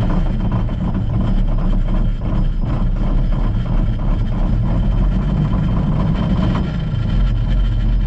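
Large farm tractor's diesel engine running steadily with a deep low rumble, heard from inside the cab.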